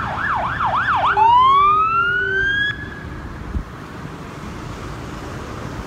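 Fire engine sirens: an electronic siren on a fast yelp, about three sweeps a second, gives way about a second in to a louder, slowly rising wail of a Federal Q mechanical siren winding up. The siren stops about three seconds in, leaving road traffic noise.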